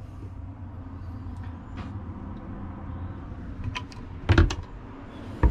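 Cabinet door being unlatched and opened by its latch: a few faint clicks, then two sharp clacks about four and five seconds in. A steady low hum runs underneath.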